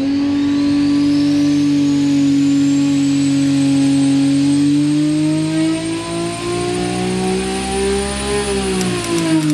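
Turbocharged 3.5-litre Dart-block 2JZ inline-six on an engine dyno during a pull: the engine note holds, then climbs steadily with rpm, with a high turbo whistle rising alongside it. About eight and a half seconds in the revs drop off, with a few sharp clicks.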